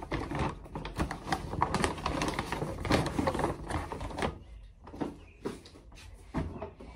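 Kraft paper shopping bag and tissue paper rustling and crinkling as a clothing order is packed into the bag and its top folded, with scattered light knocks. Busy for the first four seconds or so, then quieter with only a few clicks.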